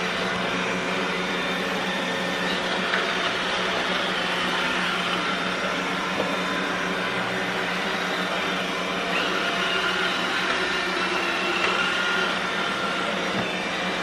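iRobot Roomba 960 robot vacuum running its spot-clean cycle over scattered cat litter on a hardwood floor: a steady motor-and-brush hum with a few faint clicks.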